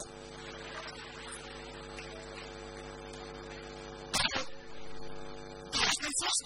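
Steady electrical mains hum, a low buzz with several steady tones, running under a faint hiss. A brief loud sound breaks in about four seconds in, and short louder bursts come near the end.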